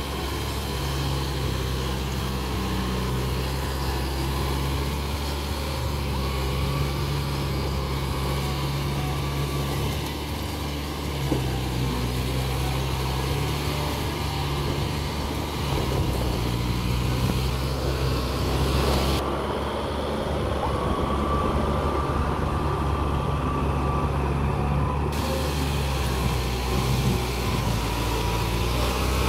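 Yanmar tractor's diesel engine running steadily under load as it pulls a rotary tiller through mud.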